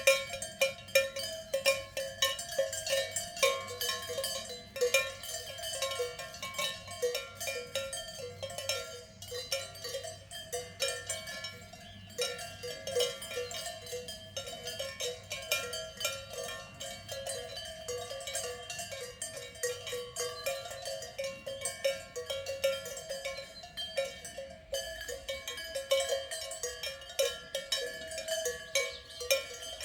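Swiss cowbells worn by a herd of cows, clanking constantly and irregularly, several bells of different pitches ringing over one another.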